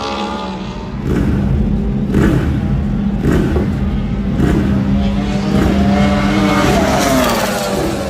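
Superbike engines running and revving, with short sharp blips and an engine note falling in pitch near the end.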